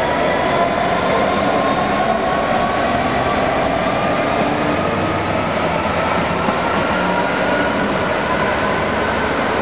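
Class 66 diesel-electric locomotive running light, its two-stroke V12 engine working as it moves off, with a steady whine that rises slowly in pitch.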